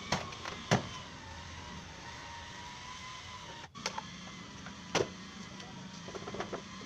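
A few sharp clicks and knocks of plastic wheel arch cladding being worked loose and taken off a car, over a steady low workshop background.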